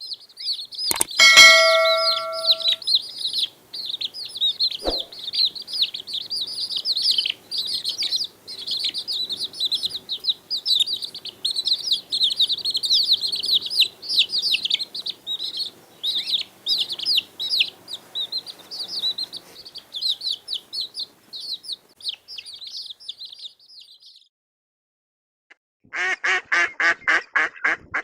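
Many small birds chirping rapidly and densely in high, quick peeps, stopping a few seconds before the end. A bell-like ding rings briefly about a second in, and near the end comes a short run of fast, evenly pulsed buzzy tones.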